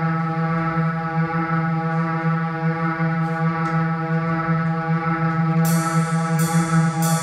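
Improvised ensemble music: a steady drone held on one low note with many overtones. About five and a half seconds in, crisp high-pitched strikes join it, repeating roughly every 0.7 seconds.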